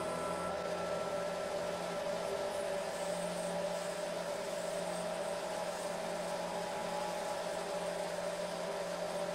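Dremel-type rotary tool running at high speed, its small end mill milling a slot into an aluminium block: a steady motor whine with cutting noise.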